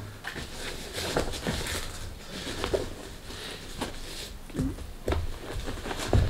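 Hands rummaging inside a padded fabric drone carrying bag, making soft rustling and scattered light knocks.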